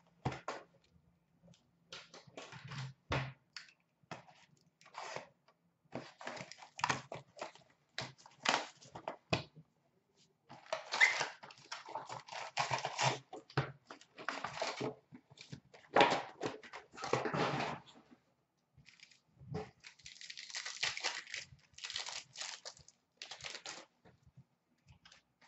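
A retail box of Upper Deck hockey cards torn open and its foil packs ripped and crinkled. Irregular bursts of tearing, rustling and card handling, densest in two long stretches in the second half.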